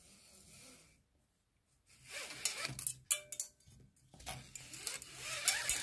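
Steel inner gear cable being pulled by hand through its housing, a scratchy, zipper-like rasp in two pulls: a short one about two seconds in and a longer one about four seconds in.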